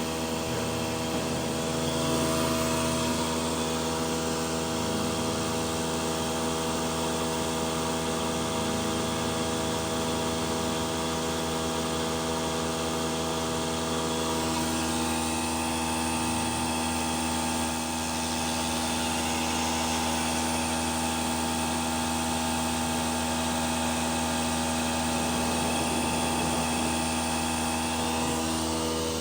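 CNC machine running on a test run: a steady motor whine and hum of several tones, whose pitch pattern shifts about fifteen seconds in.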